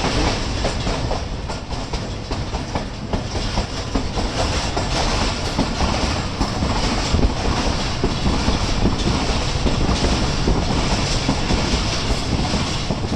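Coaches of a passenger express train running past at speed, wheels clattering steadily over the rail joints with a dense clickety-clack.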